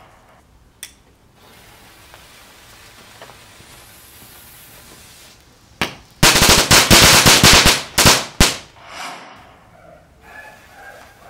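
Mini Commandos small firecrackers going off: a faint hiss, then one sharp crack and about two seconds of rapid, loud crackling bangs, ending with two separate pops.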